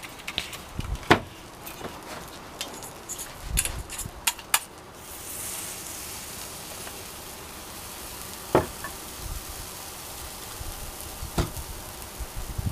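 Blueberry pancake batter sizzling in oil on a hot cast-iron pan, with sharp clinks of a metal spatula against a small steel saucepan and the pan in the first few seconds. A steadier, brighter sizzle sets in about five seconds in as fresh batter goes onto the pan, with a couple of single clinks later.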